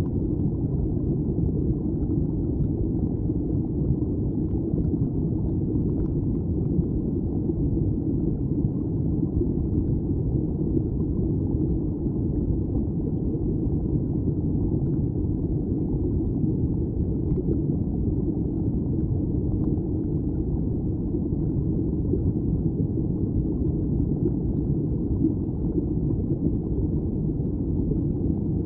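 Steady low rumble of stream water flowing over a rocky bed, heard through an underwater camera.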